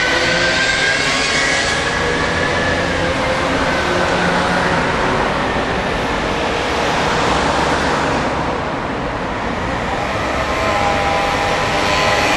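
Keikyu Airport Line train passing over the level crossing, its electric motor whine sliding and fading over the first few seconds into a steady rush of road traffic. A fresh whine comes in near the end.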